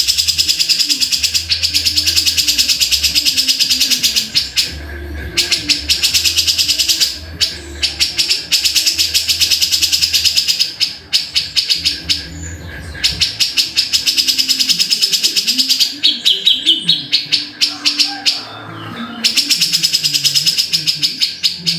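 Grey-cheeked bulbul (cucak jenggot) calling in long, fast runs of repeated harsh, rattling notes, broken every few seconds by short pauses.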